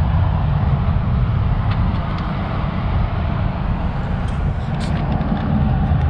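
Steady low outdoor rumble, with a few faint clicks from hand-tightening the threaded top of a backflow preventer.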